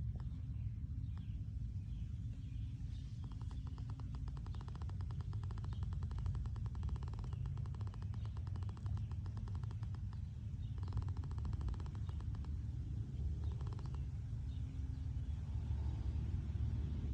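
Newborn deer fawn snoring in its sleep: a fast, rattling pulse train in bouts, one long run of about seven seconds starting about three seconds in, then two shorter ones, over a steady low rumble.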